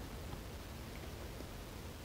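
Quiet room tone: a steady, even hiss with no distinct handling sounds.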